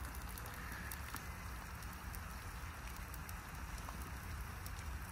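An egg and a tortilla frying in butter on a Blackstone flat-top griddle: a steady sizzle with fine crackling, the griddle running hotter than the cook wanted.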